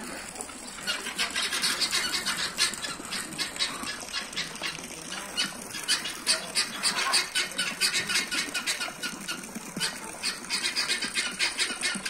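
Helmeted guineafowl giving their rapid, harsh, rattling alarm calls, several a second, starting about a second in. Here it is the evening alarm that the keeper takes as the signal for the whole flock to go to roost.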